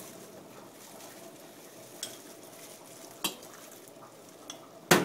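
A few light clinks and knocks of kitchen utensils and containers being handled around a metal mixing bowl, the loudest one near the end, over a faint steady hiss.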